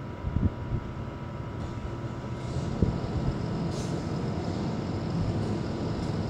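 Cummins 6.7 diesel engine of a Blue Bird All American school bus running out of sight, a steady low rumble that slowly grows louder.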